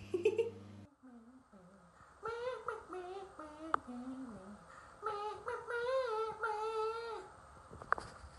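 A high voice humming a tune without clear words, moving from low notes up to higher, held, wavering notes.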